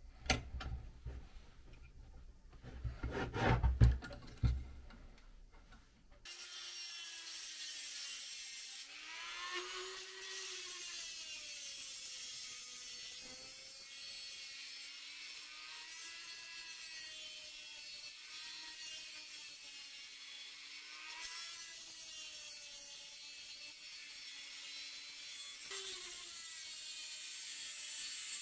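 A few clicks and knocks as a small metal part is handled in a bench vise, the loudest about three to four seconds in. About six seconds in, a Dremel rotary tool with a cut-off wheel starts grinding through a small steel piece: a steady high hiss of the cut, with the motor's whine wavering in pitch as the wheel is loaded by the work.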